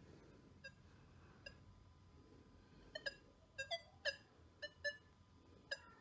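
Nokta Makro Legend metal detector in Field mode giving short, faint target-response beeps as an object is passed over the coil: about ten blips, two in the first half and the rest coming quicker from about three seconds in.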